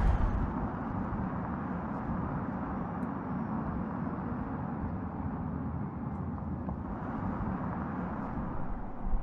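Audi RS e-tron GT electric sedan driving on the road: steady tyre-on-road noise with a low hum and no combustion engine sound.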